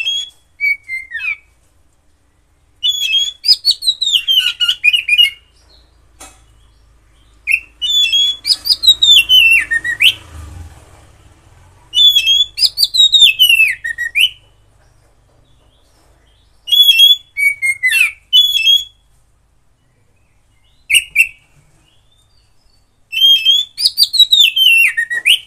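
Oriental magpie-robin of the Javan race (kacer jawa) singing: loud, clear whistled phrases of about two seconds each, most sliding down in pitch, repeated six times with short pauses between.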